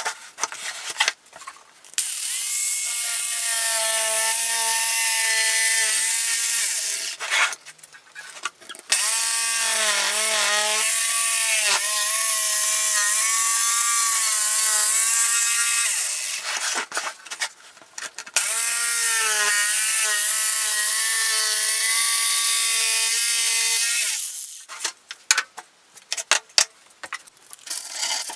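Electric jigsaw cutting plywood in three runs of several seconds each, its motor tone dipping now and then as the blade loads up in the cut. Short knocks and clatter come between the runs and near the end as the tool and panel are handled.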